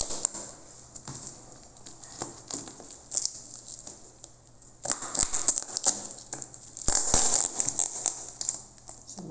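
Thin plastic bubble wrap around a boxed soundbar crinkling and crackling as it is handled and pulled at, with two louder spells of crackling about five and seven seconds in.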